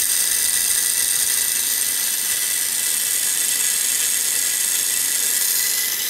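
Small low-voltage DC motor running on the output of a homemade Peltier thermoelectric generator, spinning a wheel through plastic gears with a steady high whir, alongside the heat sink's cooling fan.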